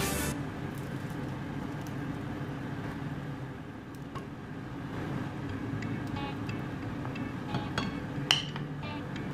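Wooden spoon stirring broth in a stainless steel pot on the hob, the liquid swishing over a steady low hum, with a few light knocks and one sharp metallic clink near the end.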